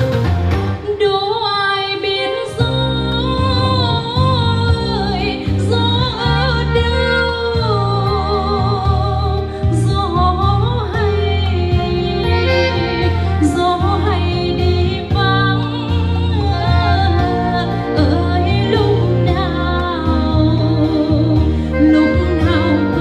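A woman singing a ballad with vibrato, backed by a live band with saxophone and a steady bass and drum beat.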